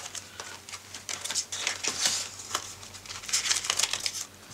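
Rustling and crinkling of clear plastic binder pockets and paper being handled, with scattered light clicks and taps, in short irregular bursts.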